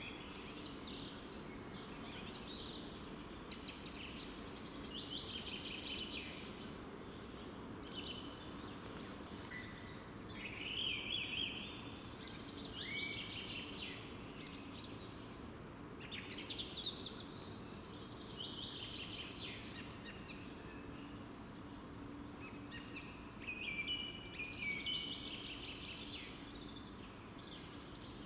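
Songbirds singing: repeated short phrases of chirps and trills, several birds overlapping, louder in a few bursts, over a steady low background noise.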